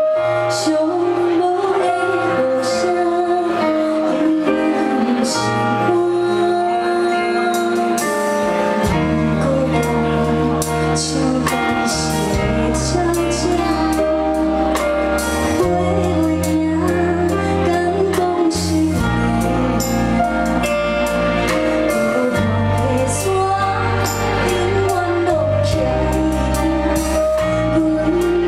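Female vocal duo singing a slow ballad with band accompaniment and percussion; a bass line comes in about nine seconds in.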